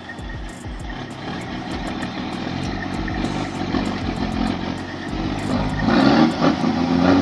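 Engine of a heavy timber truck working hard under load, growing louder toward the end.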